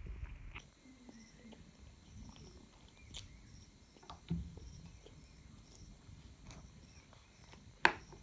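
Close-up mouth sounds of someone eating chow noodles: soft chewing and slurping with small wet clicks and lip smacks, a louder slurp about four seconds in, and a sharp click near the end.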